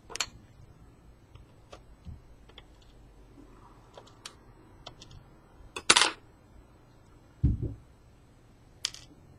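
Small sharp clicks and taps of lock parts and tools being handled while a pin-tumbler lock is taken apart, with a louder click about six seconds in and a dull thump about a second and a half later.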